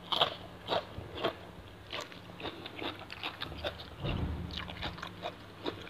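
A man biting and chewing crisp food: a run of sharp crunches, loudest in the first two seconds, then quieter, quicker chewing, with a brief low hum from his closed mouth about four seconds in.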